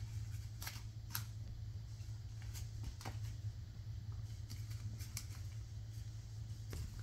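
Scattered light clicks and taps as Bengal kittens scamper on a tile floor and bat a foil gift bow, over a steady low hum.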